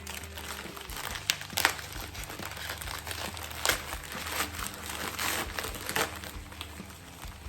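Packaging crinkling and rustling as a graded figure is unwrapped, with a few sharp clicks and knocks from handling.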